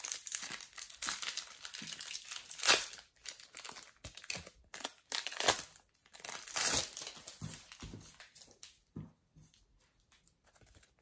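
Plastic wrapper of a Mega Match Attax trading-card packet being torn open and crinkled by hand: a run of crackling rustles with a few louder tears, dying down to soft rustles after about seven or eight seconds.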